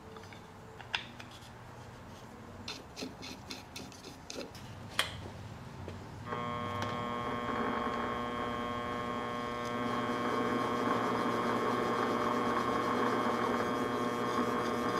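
Light handling clicks and scrapes, then about six seconds in a benchtop metal lathe starts and runs steadily with an electric motor hum and whine, a little louder from about ten seconds in.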